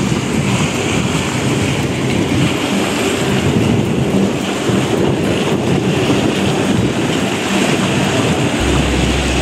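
Strong wind blowing across the microphone: a loud, steady rushing noise with no words. A deeper low rumble joins near the end.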